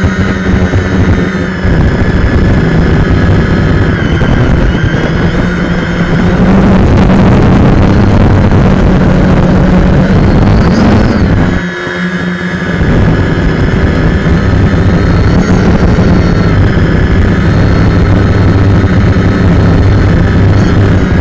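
Quadcopter's electric motors and propellers buzzing steadily, picked up by the camera riding on the drone. The pitch rises briefly about ten seconds in, then the motors drop away for about a second and spool back up.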